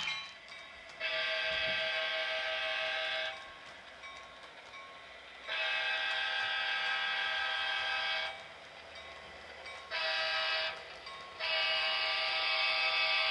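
Sound-equipped Athearn GP7U model diesel locomotive sounding its multi-chime horn in the grade-crossing pattern: two long blasts, a short one, then a final long blast.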